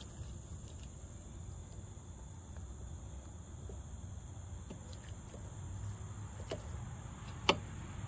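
Faint clicks and taps of a greased caliper bolt being lined up and pushed by hand into a Yamaha V Star 1300's rear brake caliper, with one sharper metal click near the end. Under it runs a steady thin high whine and a low hum.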